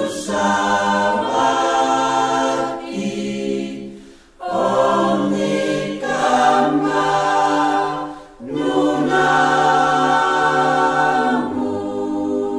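Choir singing a Christmas hymn about the Saviour, in long held phrases broken by two short pauses about four and eight seconds in.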